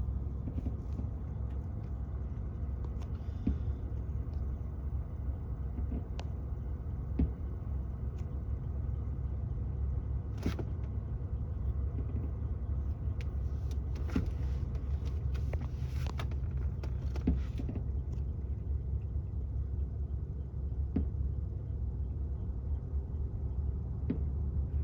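Steady low rumble of a car, with a few short sharp pops or clicks scattered through it: one about ten seconds in and several more a few seconds later.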